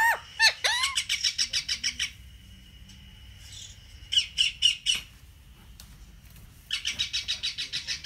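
Parrot calls: a couple of rising squawks, then three runs of rapid repeated chattering notes, about nine a second, each lasting a second or so.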